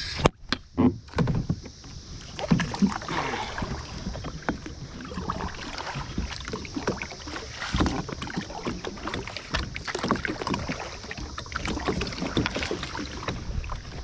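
Plastic kayak being paddled: water splashing and sloshing around the hull and paddle, with irregular sharp knocks and clunks against the hull, several loud ones near the start.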